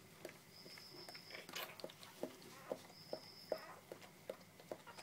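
Border collie puppies jostling together, with a quiet, irregular scatter of short squeaks, smacking mouth sounds and scrabbling.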